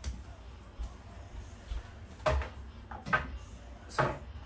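Two short knocks or clunks a little under a second apart, as objects are handled and set down, followed by a spoken 'So'.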